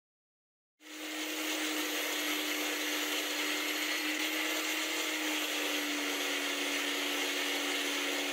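Disc sander spinning, with a twist drill bit held against its sanding disc in a wooden jig to grind a four-facet point. It starts suddenly about a second in: a steady hum with a hiss over it, the hum dropping slightly in pitch past the middle.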